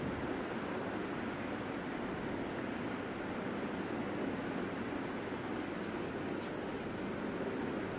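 Steady hiss of room noise, with five short bursts of high-pitched trilling chirps starting about a second and a half in.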